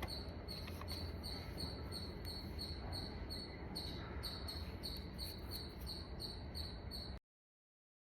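A chirping insect giving short, high, evenly spaced chirps, about three a second, over a low steady hum. The sound cuts off suddenly about seven seconds in.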